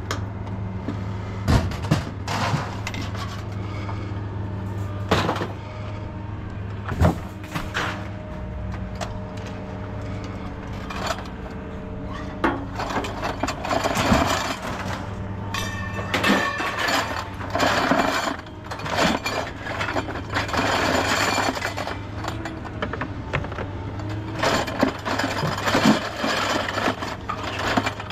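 Scrap metal and appliance parts being handled and shifted by hand, with many sharp knocks, bangs and rattling clatter, busiest in the middle and again near the end, over a steady low hum.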